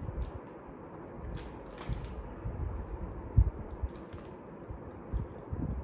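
Close-miked eating: a Choco Pie being bitten and chewed, with soft mouth clicks and low thumps, and a few brief crinkles of paper and foil wrapping as the food is handled and set down.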